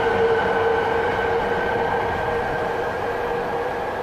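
Electric train running out of sight, a steady high whine over a rumble that slowly fades.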